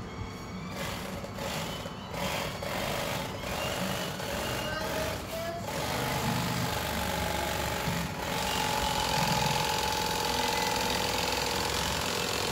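Cordless electric fillet knife running, its reciprocating serrated blades buzzing steadily as they saw through a fish fillet, a little louder in the second half.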